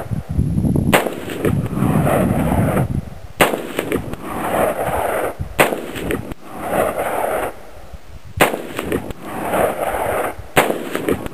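Bushmaster AR-15 rifle firing five single, slow-aimed semi-automatic shots, about two to three seconds apart, each crack followed by a trailing echo.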